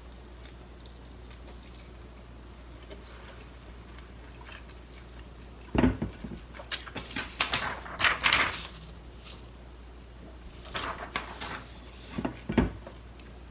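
A person biting into and chewing a whole uncut sushi roll wrapped in nori, in two bouts of soft crackling and clicking mouth sounds with a couple of dull thumps, after a few quiet seconds.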